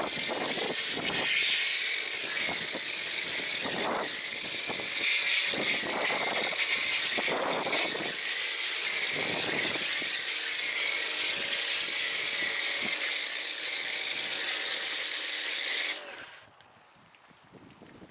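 MATCC foam cannon on a pressure washer spraying snow foam: a loud, steady hissing spray that cuts off suddenly about sixteen seconds in.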